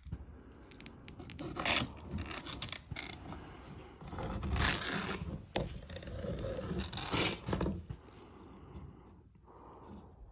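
Scraping and rubbing from handling a borescope inspection camera and working its cable through a small hole in a drywall ceiling, in irregular bursts that come and go, loudest in the middle.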